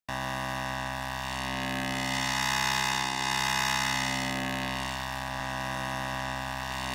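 Eurorack wavetable oscillator module (1V/Oct The Centre) sounding a steady low drone, one held note with many overtones, starting abruptly and swelling slightly in loudness midway.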